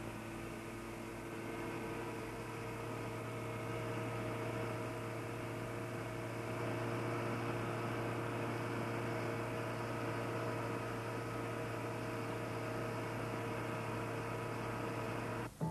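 A steady machine hum with hiss and several constant tones over a low drone, from equipment in an exhaust gas test room. It cuts off abruptly just before the end.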